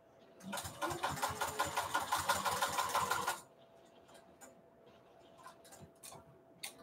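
Juki sewing machine stitching a seam at speed for about three seconds, a fast even run of needle strokes, then stopping. A few faint clicks follow.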